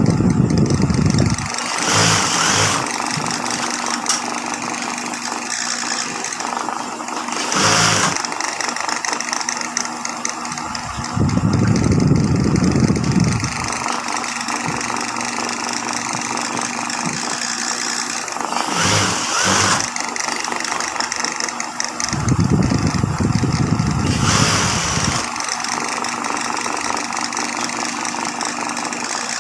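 High-speed industrial sewing machine running in bursts over a steady machine hum, each stitching run lasting two to three seconds and recurring about every eleven seconds, with a few short clacks in between.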